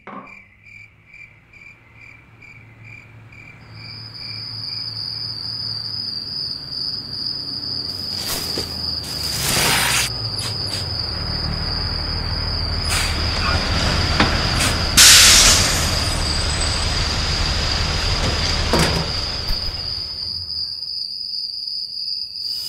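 Crickets chirping in pulses, a higher, steadier trill joining about four seconds in. Beneath them a low rumble builds up, with a few loud rushing surges, the loudest about two-thirds of the way through.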